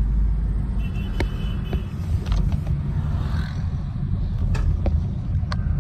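Steady low rumble of a car's engine and road noise heard from inside the cabin while driving, with a few light clicks and a brief high tone about a second in.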